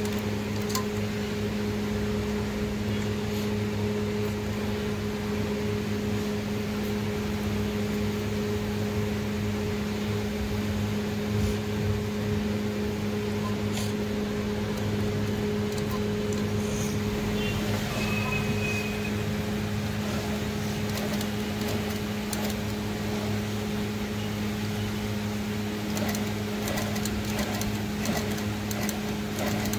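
Orpat electric sewing machine's motor running with a steady hum while the machine stitches a test seam through cloth, with a few faint clicks near the end.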